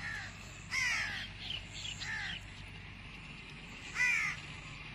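Crows cawing: a handful of short, harsh calls, the loudest about a second in and again about four seconds in.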